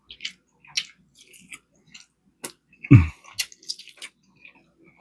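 Close-miked wet chewing and mouth smacks of a man eating rib tips, with a short low thump about three seconds in.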